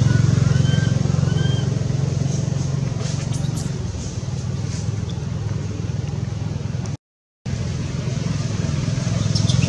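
A steady low drone, like an engine running nearby, with a few short high chirps in the first second and a half. The sound cuts out briefly about seven seconds in.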